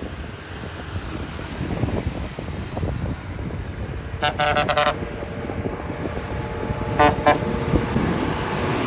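Bus horn sounding in a quick run of short pulsing blasts a little over four seconds in, then two more short blasts near seven seconds, over steady road and engine noise.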